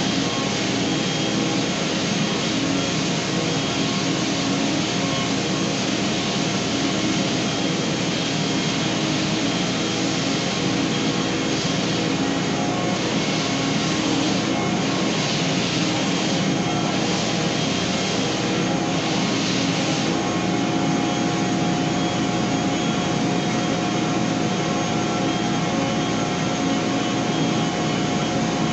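Stationary belt sander with a coarse 40-grit belt running steadily while wooden stair treads are sanded on it. In the middle a hissing swells and fades about once a second for several seconds, then the steady running goes on.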